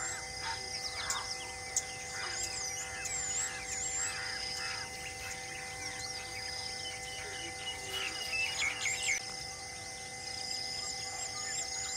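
Wild birds calling: many short chirps, with repeated high whistled notes that grow into a quick series of rising chirps near the end, over a steady bed of sustained tones.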